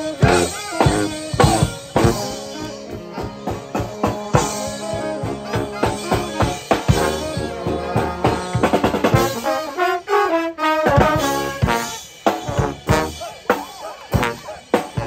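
Military brass band playing Dixieland jazz, with trombones out front over sousaphone, saxophones and drums. About ten seconds in the low brass and drums drop out briefly while higher lines carry on, then the drum strokes come back.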